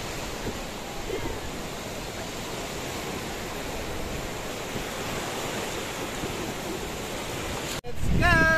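Waves breaking and washing up a sandy shore, a steady rushing noise that cuts off suddenly near the end.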